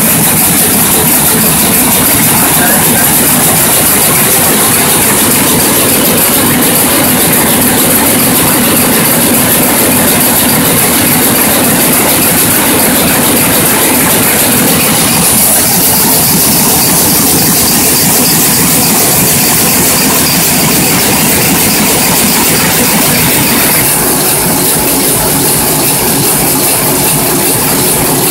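KBA four-colour sheetfed offset printing press running in production: a loud, steady mechanical din with a continuous high hiss.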